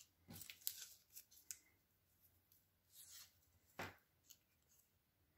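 Faint rustles and light clicks of a folded paper tree cutout and craft supplies being handled on a craft mat: a cluster of soft clicks in the first second and a half, then a brief rustle and one sharper click about three to four seconds in.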